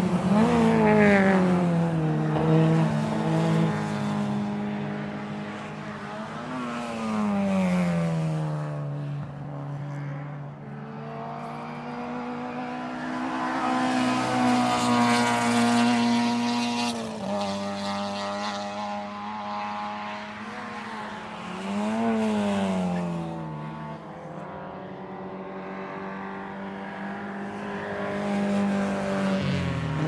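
Race car engines at high revs passing by one after another. Each swells and then drops in pitch as it goes past.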